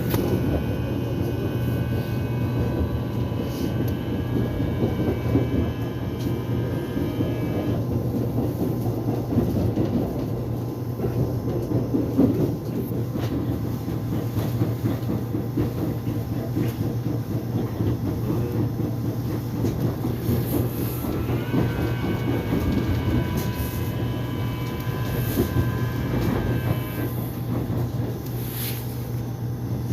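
Korean subway train running with a steady rumble of wheels on the track. A high, layered electric whine of the motors sounds for the first several seconds, stops, then comes back about two-thirds of the way through, starting with a short rise, before stopping again.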